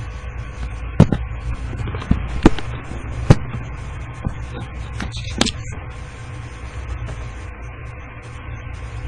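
A steady low hum with about seven sharp clicks and knocks scattered over the first six seconds; the loudest come about a second in and around two and a half to three seconds in.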